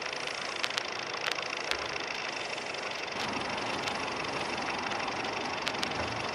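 Steady engine noise with scattered light ticks, growing a little louder about halfway through.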